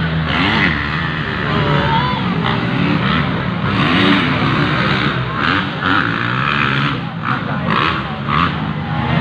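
Motocross dirt bike engines revving on the track, the engine note rising and falling repeatedly, with spectators' voices mixed in.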